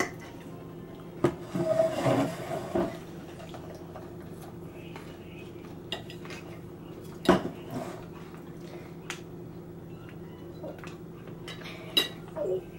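Knife and fork clinking and scraping against a plate while cutting a serving of chicken parmesan bake. The clinks come scattered, with a busy stretch early on and one louder clink about halfway through.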